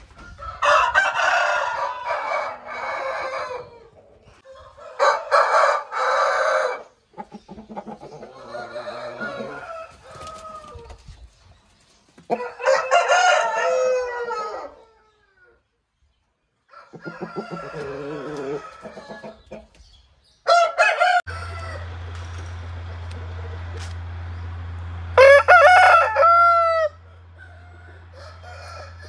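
Aseel roosters crowing, about seven separate crows of one to three seconds each, some loud and some fainter. A steady low hum runs under the last few crows.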